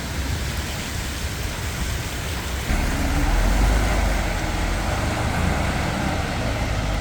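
Steady hiss of rain on a wet street, with a low rumble that starts suddenly about three seconds in and fades over the next couple of seconds.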